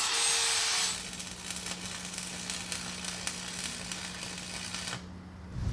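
Angle grinder grinding steel for just under a second. Then stick welding with a Lincoln 225 arc welder: the arc crackles and sizzles over a steady low hum, and the crackle stops about five seconds in.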